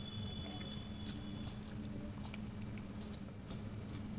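Faint sounds of eating rice by hand: chewing, and fingers mixing rice with dal on a metal plate, as scattered soft ticks over a steady low hum.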